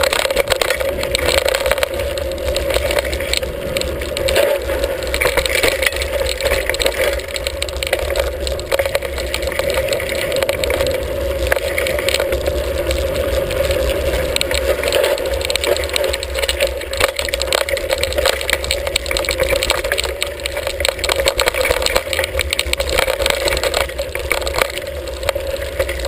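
Hardtail mountain bike riding a rough dirt singletrack, a steady clatter of rattles and knocks from the bike over the bumps along with tyre noise on dirt and gravel, and a low wind rumble underneath.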